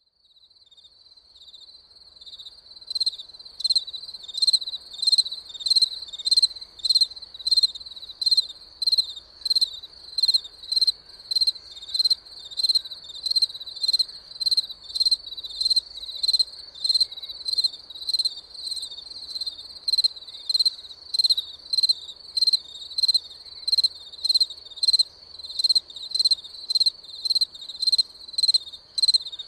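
A cricket chirping in a steady, even rhythm of about two high-pitched chirps a second, fading in over the first few seconds.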